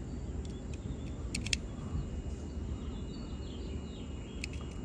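Steady low background rumble with faint bird chirps about halfway through, and a few short sharp clicks about a second and a half in and again near the end.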